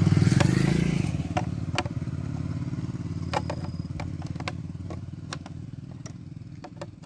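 A motorcycle engine running with a low, fast-pulsing rumble that fades steadily away over several seconds. Scattered light clicks of a metal tool and fingers against the plastic visor and its mounting screws.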